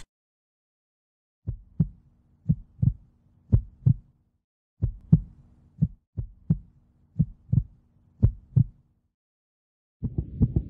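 Heartbeat sound effect: about eight low double thumps (lub-dub), roughly one beat a second, over a faint low hum. A short gap follows, and a faster, denser run of beats starts near the end.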